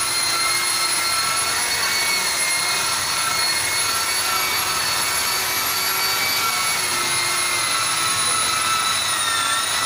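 Electric rotary car polisher running steadily with a high whine as its buffing pad works a painted bumper; the pitch sags briefly near the end.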